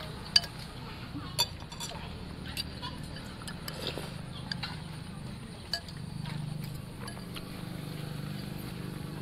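Metal spoons and forks clinking against ceramic soup bowls, a handful of sharp single clinks spread through, over a low steady hum that grows louder about six seconds in.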